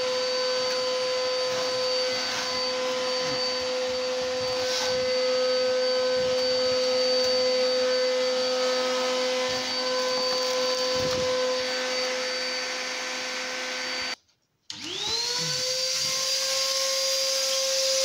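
Industrial vacuum motor running with a steady whine. About fourteen seconds in it stops abruptly, then half a second later starts again, its pitch rising quickly back up to speed.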